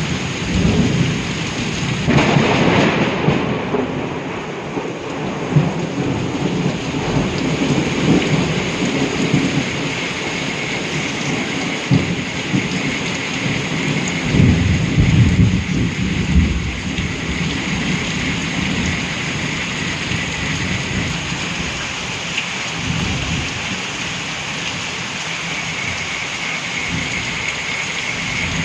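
Steady rain falling, with low rolls of thunder, the strongest just after the start and again about halfway through.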